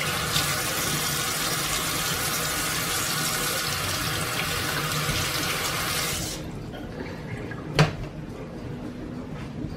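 Kitchen tap running into a stainless steel sink, the water splashing over leeks as they are rubbed clean of sand under the stream. The water is shut off about six seconds in, and a single knock follows near the end.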